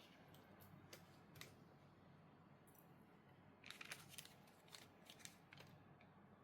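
Faint handling noise from unboxing a wristwatch: a few scattered light clicks, then a quick cluster of clicks about four seconds in and another about five seconds in.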